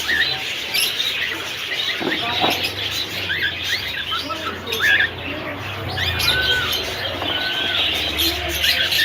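Many caged parrots and cockatiels chirping and calling over one another, short overlapping chirps with a couple of longer arched calls near the middle.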